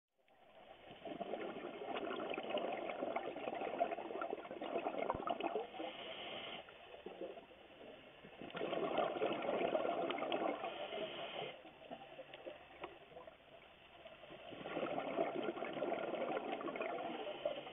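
Scuba diver's exhaled bubbles from the regulator, heard underwater through the camera: three long bursts of bubbling a few seconds each, with quieter pauses between them for the in-breaths.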